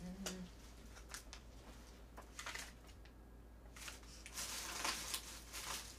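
Faint rustling and light clicks of objects being handled and moved about, with a short rustle about four and a half seconds in. The tail of a woman's humming ends just at the start.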